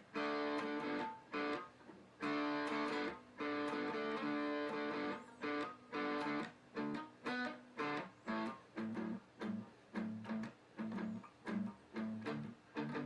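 Guitar being strummed: ringing chords at first, then short, clipped strums with brief gaps between them.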